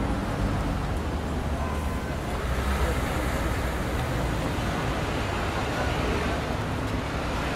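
Steady street traffic ambience: a continuous low rumble of passing vehicles with an even hiss over it.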